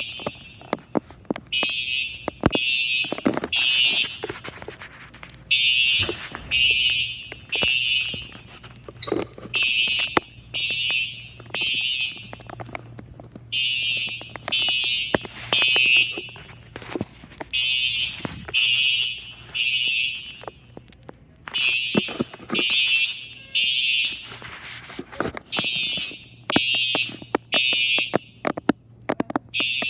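Building fire alarm sounding the evacuation signal in repeating groups of three short high beeps with a pause between groups, set off from a manual pull station. Scattered knocks and clicks fall between the beeps.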